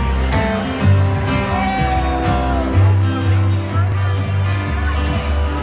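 A live acoustic band plays: an upright double bass plucks deep notes that change about once a second under two strummed and picked acoustic guitars.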